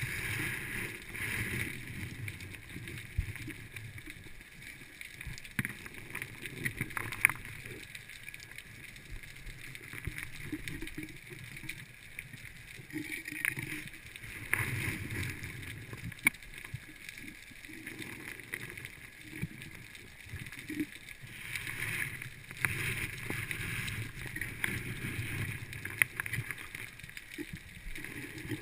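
Underwater sound of a scuba diver breathing through a regulator, with a rushing hiss and bubbling that swell every several seconds. Sharp clicks come now and then as gloved hands sift through stones and lead sinkers on the seabed.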